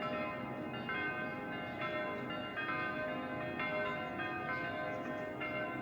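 Church bells ringing: several bells struck one after another, about one strike a second, each tone ringing on under the next.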